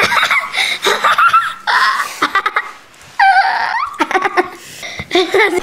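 Children laughing and giggling, on and off, in high wavering voices.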